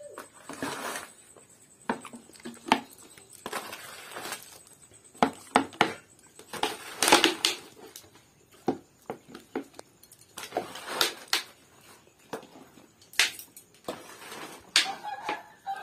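Spoon scraping through thick pickle on a bamboo winnowing tray, and the pickle being pressed into a plastic jar. The scrapes come in irregular bursts, with sharp clicks and taps in between.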